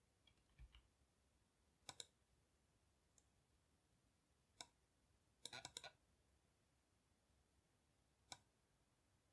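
Faint computer mouse clicks: a double click about two seconds in, a single click, a quick run of several clicks, then one more near the end.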